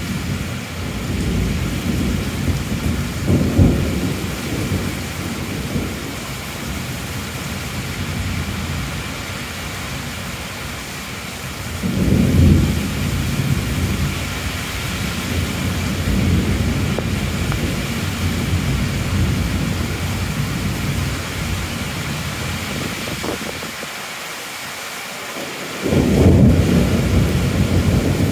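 Heavy rain falling steadily, with low rolling thunder that swells and fades three times: a few seconds in, about twelve seconds in, and loudest near the end.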